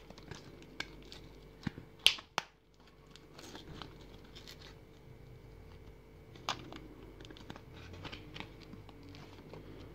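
A microSD card's cardboard-and-plastic blister pack being torn and picked open by hand. Scattered crinkles and clicks, with two sharp snaps about two seconds in and another near six and a half seconds.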